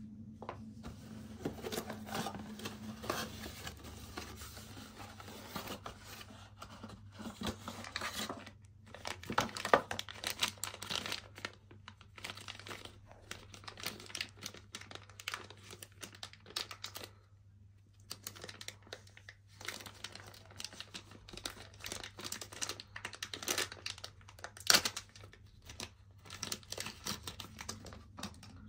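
Clear plastic packaging bag crinkling and rustling as it is handled and opened, in irregular bursts with short pauses, with two sharper crackles, one about ten seconds in and one near the end.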